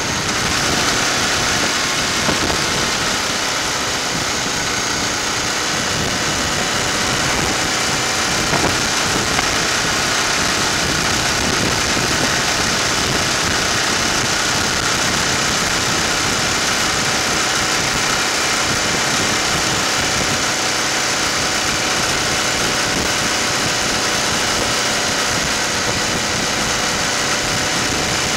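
Motorcycle running at a steady cruise, its engine under a constant rush of wind and road noise.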